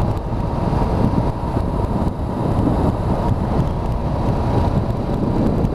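Motorcycle cruising at a steady speed: engine and road noise mixed with wind rushing over the microphone.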